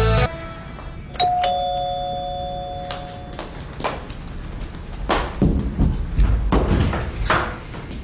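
A two-tone ding-dong doorbell chimes about a second in, a higher note then a lower one, both ringing on for about two seconds. Then come quick footsteps on a wooden floor as someone hurries to the door.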